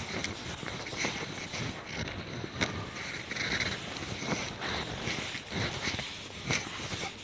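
Board duster rubbing across a chalkboard as it is wiped clean, an uneven scrubbing with scattered light knocks.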